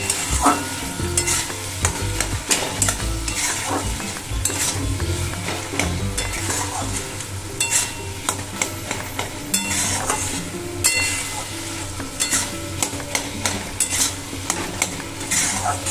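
A metal spatula stirring and scraping soft-cooked bottle gourd and mung dal around a metal wok (kadai), in repeated strokes, over a steady sizzle from the frying food.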